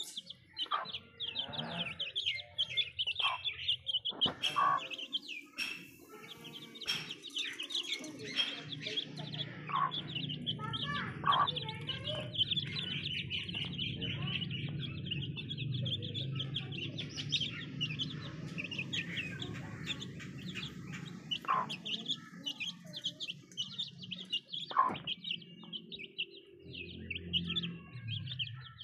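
Young Aseel chicks peeping and chirping rapidly and almost without pause while they feed from a steel bowl. Sharp clicks of beaks pecking against the metal are scattered through it, and a hen clucks alongside.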